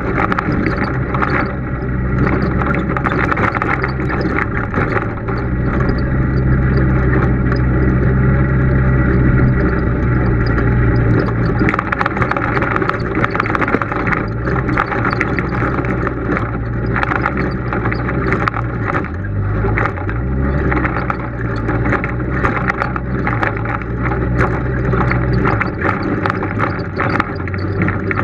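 Polaris RZR side-by-side's engine running at low trail speed, its note shifting a few times and dropping near the end. From about halfway through, frequent knocks and rattles as the machine crawls over a rocky trail.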